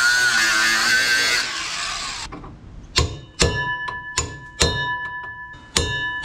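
Angle grinder cutting through a rear shock absorber's mounting nut, running steadily and then winding down about two seconds in. From about three seconds, a hammer strikes a steel punch at the shock mount around eight times, each blow ringing metallically, to knock the cut shock absorber out.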